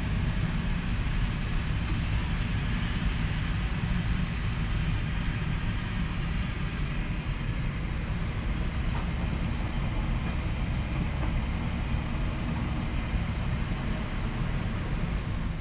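Heavy construction machinery running steadily, a low diesel rumble that holds even without revving or stopping.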